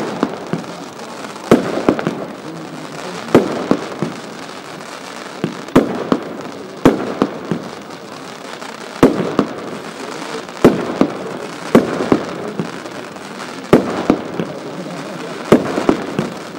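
Nico 'Time Rain' firework battery firing: sharp shots every one to two seconds, often in quick pairs, with a steady rushing noise between them as the shots climb and burst.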